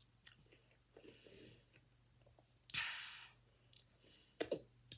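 Close mouth sounds of someone eating: a sharp, breathy noise about three seconds in, then wet clicking smacks of lips and fingers being licked near the end.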